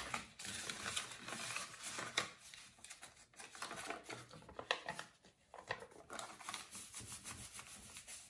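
Paper money and a paper envelope rustling and rubbing as they are handled, with scattered light clicks and taps.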